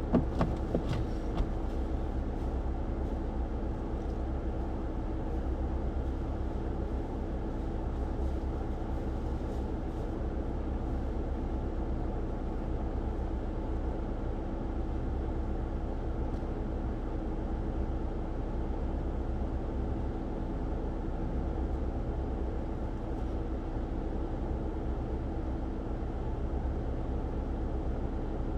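Jeep Wrangler Willys engine idling steadily while parked with the emergency brake on, with a few short clicks in the first second or so.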